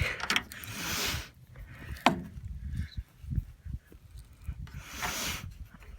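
Handling noises: a sharp click about two seconds in, a few low knocks and two stretches of rustling hiss, as the shot-up microwave is moved about.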